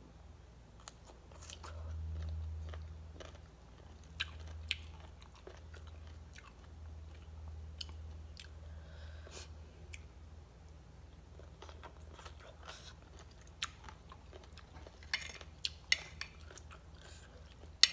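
Close-up chewing and crunching of shredded green mango salad, with many short crisp crunches. A few sharper clicks come near the end.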